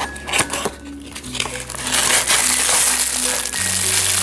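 Cardboard model-airplane box handled and opened by hand: a few sharp clicks and taps, then about two seconds of loud crinkling and rustling as the box flap and the plastic wrapping inside are worked, over background music.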